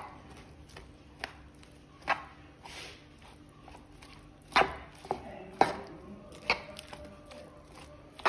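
Metal utensil tossing a chopped salad in a plastic dish, knocking and scraping against the dish in several irregular taps.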